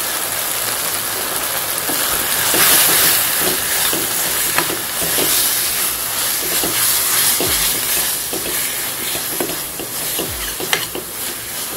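Onion-tomato masala with freshly added spice powders sizzling in oil in a stainless steel pan. A steel spatula stirs it, with frequent short scrapes and taps against the pan.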